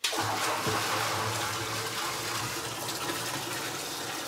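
Liquid poured from a stainless steel bucket into a copper pot still: a steady gushing splash that starts suddenly and eases a little toward the end. It is the charge of water and alcohol going into the still before distilling.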